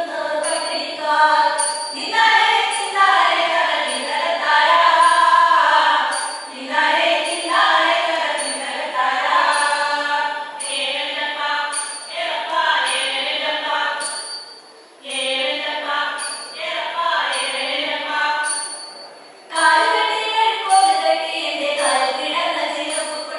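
A group of women singing a Malayalam folk song (nadan pattu) together, phrase after phrase, with two brief pauses for breath between phrases in the second half.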